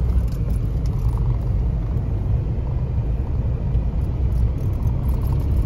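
Steady low rumble of a car driving along a winding hill road, engine and tyre noise heard from inside the cabin.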